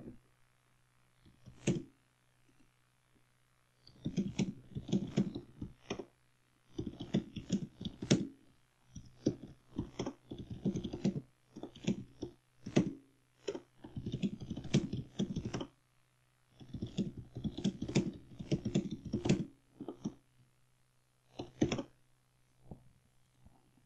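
Typing on a computer keyboard: bursts of rapid keystrokes lasting a second or two, with short pauses between them, over a steady low hum.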